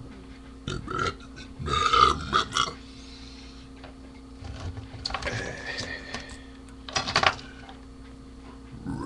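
A man burping several times in separate bursts, the loudest about two seconds in, over a steady low electrical hum.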